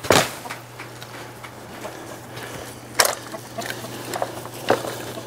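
A few sharp knocks with small clicks between, from a plastic poultry waterer being handled and set down on the ground.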